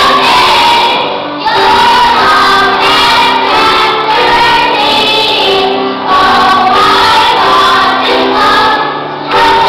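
Children's choir singing a praise song, in sung phrases with short breaks between them.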